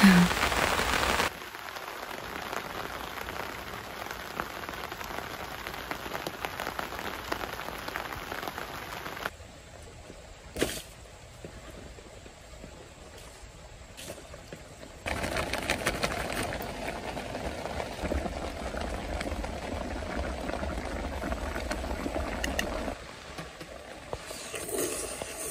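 Steady rain falling, an even hiss that shifts in level at several abrupt cuts, with one sharp click about ten seconds in.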